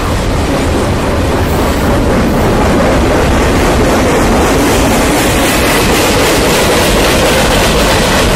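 Freight cars of a long mixed freight train (tank cars, covered hoppers, boxcar) rolling past at speed: a loud, steady rumble and clatter of steel wheels on the rails.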